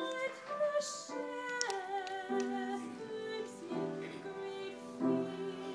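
Slow music with a woman singing long held notes with vibrato.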